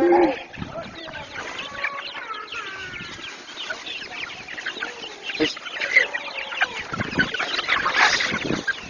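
A flock of chickens clucking and squawking, many short calls overlapping, with a louder flurry about eight seconds in.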